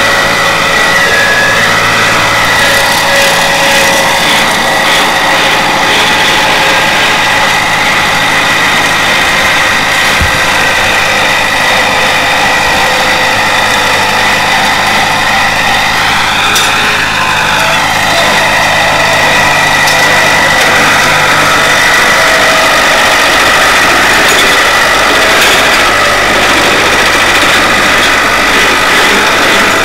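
Ford farm tractor engine running steadily as the tractor rears its front wheels off the ground, with a brief dip and rise in pitch about halfway through.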